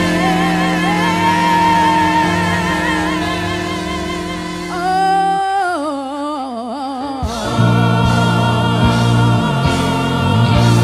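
Live gospel worship music: women's voices hold long notes with vibrato over a band. About five seconds in, the voices slide down in pitch, and about seven seconds in the band moves to a new chord with a heavy bass.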